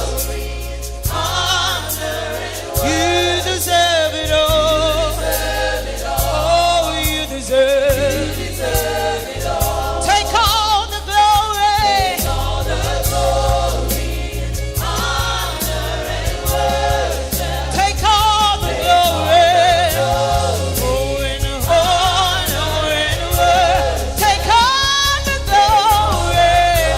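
Gospel worship music: singers and a choir sing with wavering vibrato over a band's steady bass and beat.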